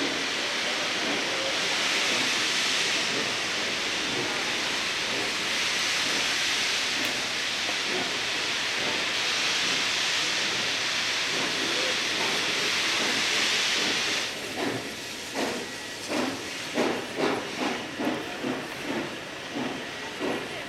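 Steam locomotive hissing steadily with escaping steam. About fourteen seconds in, the hiss stops and exhaust chuffs begin, about two a second, as the train pulls away.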